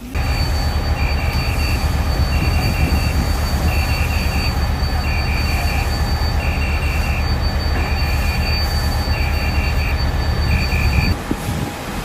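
A high-pitched electronic alarm beeping in quick groups of three or four, about once a second, over a steady high whine and a loud, steady low engine-like rumble; everything cuts off shortly before the end.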